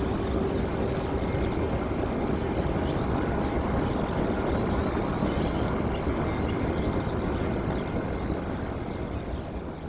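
Jet airliner engines running with a steady rumble and roar, a couple of steady engine tones over it, fading away over the last couple of seconds.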